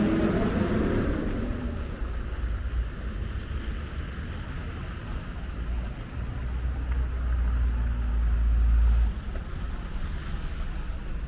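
City street traffic: vehicles passing, with a deep low rumble that builds, peaks and cuts off suddenly about nine seconds in.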